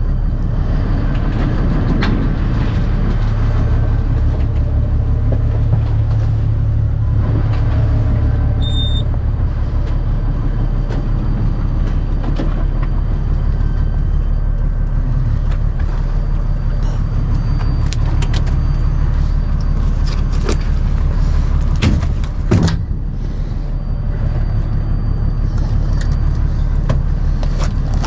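A small fishing boat's engine running steadily with a low rumble, with scattered clicks and knocks on deck and one louder knock about 22 seconds in.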